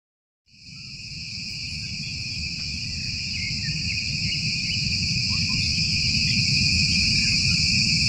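Dense insect chorus: a continuous high-pitched shrill that fades in about half a second in and then holds steady, with a low rumble of background noise beneath it.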